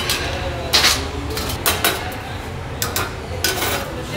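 Metal plates clinking and scraping against a skimmer and against each other as they are lifted off a bed of steamed pilaf rice in a large kazan, with several sharp clinks a second or so apart over a low steady hum.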